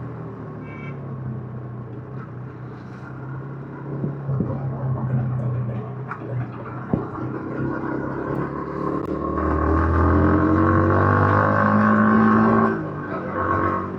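Yamaha MT-15's single-cylinder engine through its stock exhaust, running steadily at first, then opening up from about nine seconds in with the revs climbing and the sound getting louder, before the throttle is rolled off suddenly near the end.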